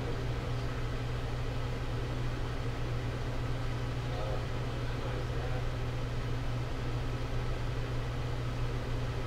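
Steady low hum under an even hiss from the homemade ionizer box running on mains power: its small fan and the 110 V ion generator modules.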